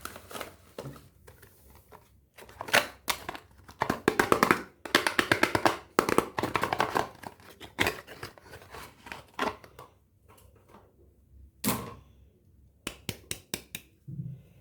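A knife cutting and carving a bar of soap: crisp, crunchy clicking strokes in quick runs, densest through the middle, with single strokes and a short run of clicks near the end.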